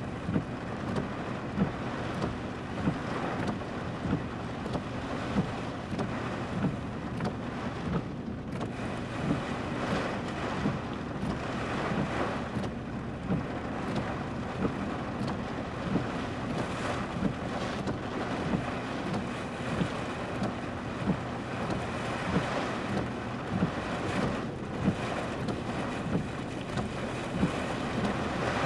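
Squall-line wind and rain, a steady rushing noise that swells and eases with the gusts, with soft regular knocks about once a second.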